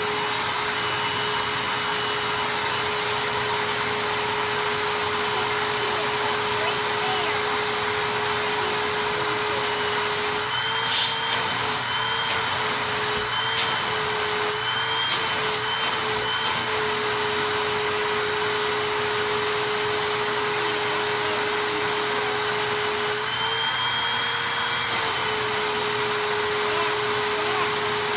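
Hoover WindTunnel MAX bagged upright vacuum cleaner running with a steady motor hum and high whine. Its pitch rises briefly several times about a third of the way in, and again for a couple of seconds later on.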